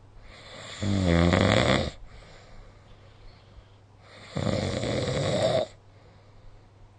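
A sleeping person snoring: two loud snores about three and a half seconds apart, each lasting just over a second, the first with a low buzzing tone and the second breathier.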